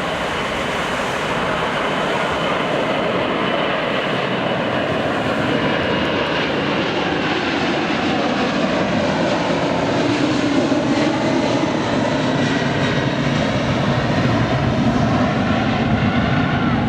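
Four turbofan engines of a Boeing 747-400 running at takeoff power, a loud, steady jet noise that slowly grows louder, with faint tones gliding in pitch.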